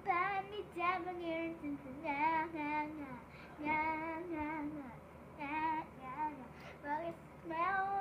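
A young girl singing without accompaniment, in phrases of long held notes.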